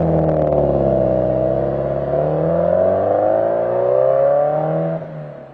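Car engine and exhaust through an HKS Super Turbo Muffler, accelerating with a steadily rising note, then falling off sharply near the end.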